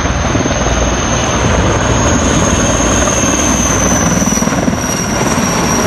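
Sikorsky S-64 Air-Crane firefighting helicopter flying low. Its rotor and turbine noise is loud and steady, with a thin high whine above it.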